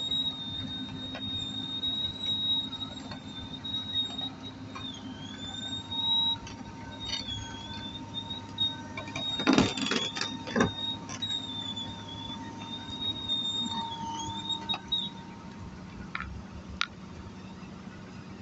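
Komatsu PC200 hydraulic excavator running, its diesel engine droning steadily under a high-pitched whine that dips in pitch now and then and stops about three seconds before the end. A burst of loud metallic clanks comes about ten seconds in.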